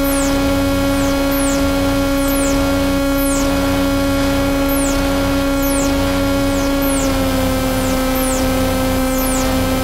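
Electronic noise improvisation on Noise Rumble noise boxes run through a Korg Kaoss Pad KP3. A steady low drone tone sits over a bed of static hiss, with high falling chirps about one or two a second. The drone drops slightly in pitch about seven seconds in.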